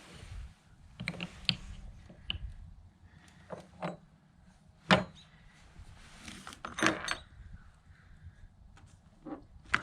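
Irregular clicks, taps and knocks of hand work on a Jeep antenna mount as the mount base and its parts are handled and lined up. The sharpest knock comes about five seconds in, with a clattering cluster a couple of seconds later.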